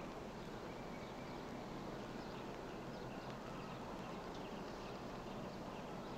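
Steady hiss and hum of an old film soundtrack with a few faint high chirps scattered through it, and no speech or music.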